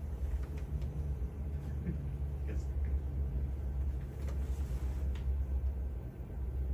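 Low, steady drone of a C-130's four turboprop engines passing over the airfield, heard muffled through the control tower's windows.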